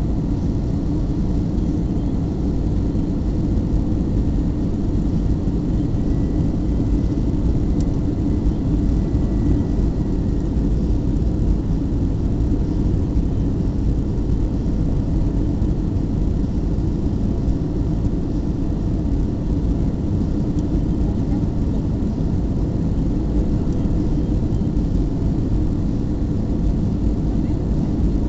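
Steady rumble of an Airbus A320's engines and rushing air, heard from inside the passenger cabin during the final approach, with a faint steady hum.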